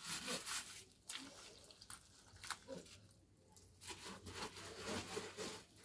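Hand smearing wet mud plaster over a clay cooking stove (chulha): faint, irregular squishing and scraping strokes with short pauses.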